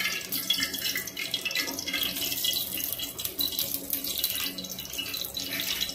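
Cooking oil poured into a hot steel wok, hissing and crackling steadily as it heats.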